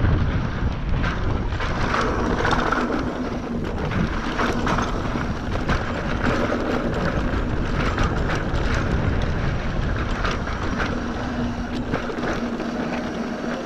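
Wind buffeting the microphone over the rumble and rattle of a mountain bike rolling down a dirt trail, with frequent small knocks from bumps and loose rocks.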